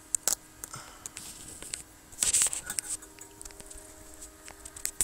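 Handling noise from a camera being lifted off its mount and carried: scattered clicks and rustles, with a louder rustling scrape a little over two seconds in, over a faint steady hum.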